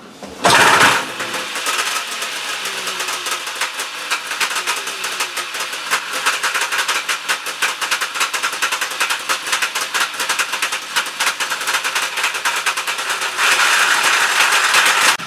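Kohler K440-2AS two-stroke twin engine on a Mercury Trail-Twister starting about half a second in, then running with a rapid popping beat that gets louder near the end. It ran very rich on this first start, which the owner puts down to fuel that spilled into the crankcase base when the engine was tipped on edge.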